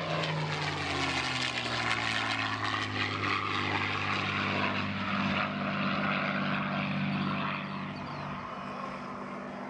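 P-51 Mustang's Merlin V-12 engine on a fly-by. Its pitch drops as it passes at the start, then it settles into a steady drone that fades a little near the end.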